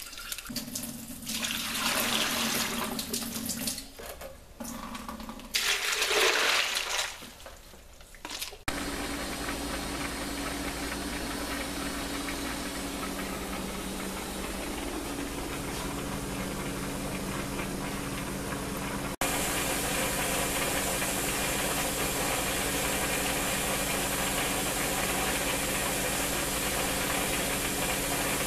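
Kitchen tap running into a bucket of ice in two bursts. After a sudden change a steady hiss with a low hum takes over, stepping up louder about two-thirds of the way through.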